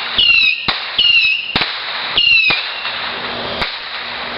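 Fireworks going off: three short whistles falling in pitch in the first two and a half seconds, with sharp cracks between them and a steady crackling hiss.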